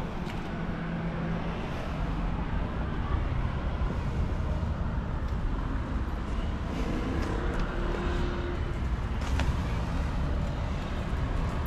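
Steady rumble of road traffic passing along a street.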